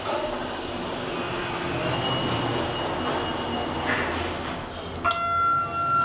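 Otis Series 1 elevator car travelling in its shaft, a steady rushing ride noise. About five seconds in, a loud steady electronic tone starts abruptly and holds: the car's chime or signal.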